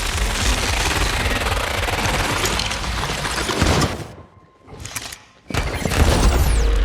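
Sound-designed rapid gunfire over a deep low rumble, dense shots running together. It cuts out for about a second and a half just after four seconds in, then comes back loud with a thin falling whistle near the end.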